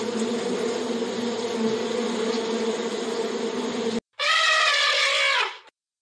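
A mass of honeybees buzzing with a steady hum that cuts off abruptly about four seconds in. Then an African elephant trumpets once, a loud call about a second and a half long that drops in pitch at the end.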